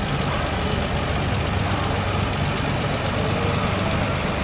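Vintage farm tractor engine running steadily at low revs as the tractor drives slowly past.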